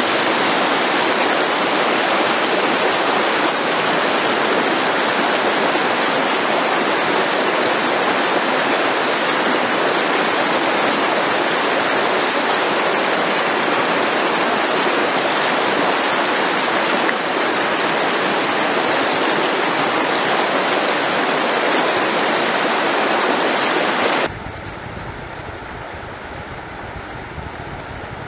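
Shallow stream rushing over stones and small rapids, a loud, steady rush of water. About 24 seconds in it cuts abruptly to a quieter, duller rush with more low rumble.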